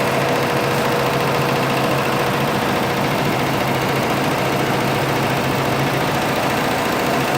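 Six-head embroidery machine running and stitching: a fast, even run of needle strokes over a steady mechanical hum.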